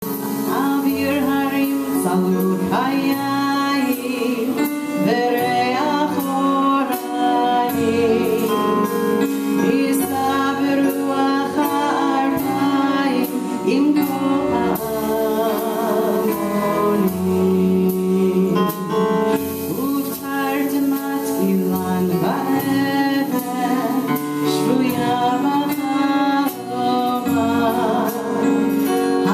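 A woman sings a Hebrew song with a small live band, over sustained keyboard chords and a drum kit keeping time.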